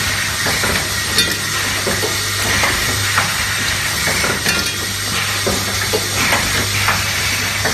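Automatic hose clamp making machine running: a steady low hum under continual irregular metallic clicking and clattering of its mechanism, with hissing.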